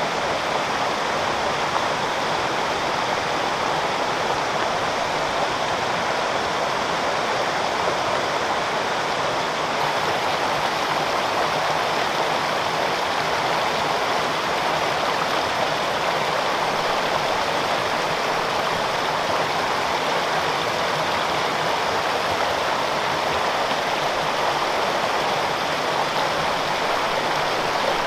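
Waterfall and mountain stream: a steady rush of falling and flowing water.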